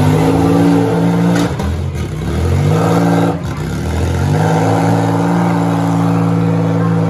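Demolition derby car engines revving hard. The pitch drops about a second and a half in, climbs back, dips briefly, then rises again and holds high.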